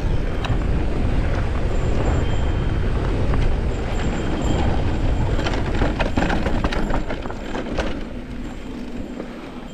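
Ride noise from an electric mountain bike descending dirt singletrack: a steady rumble of knobby tyres and wind on the handlebar-mounted microphone. Rattles and knocks from the bike over rocks come thickest in the second half.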